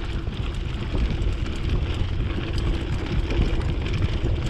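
Wind buffeting the microphone of a mountain bike ridden fast on a dirt singletrack, a steady low rumble with the bike's small rattles and knocks over the rough trail.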